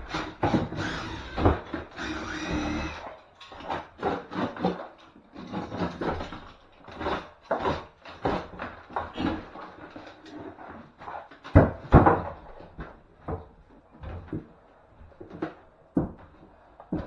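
Knocks, scrapes and clatter of old wooden boards and timber being pried and pulled off a wall by hand, irregular throughout, with two loud bangs close together about two-thirds of the way through.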